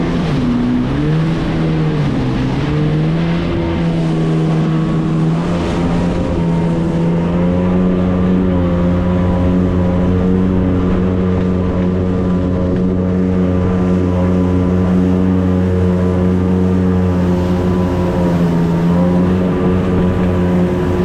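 Jet ski engine running at a steady throttle. Its pitch drops and recovers about a second or two in, then holds even.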